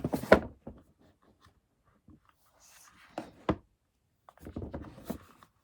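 Handling noises from a small container being taken out and moved around: sharp knocks and clicks at the start, two more clicks about three and a half seconds in, then scraping and rustling near the end.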